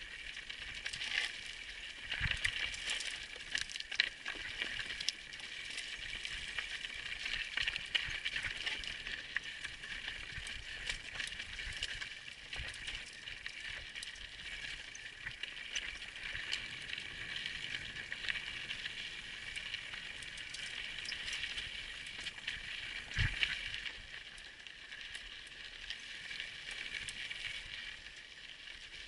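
Mountain bike riding over a rocky trail: a continuous rattle and clatter with many sharp ticks from the bike jolting over stones. Two heavier thumps stand out, one about two seconds in and one about six seconds before the end.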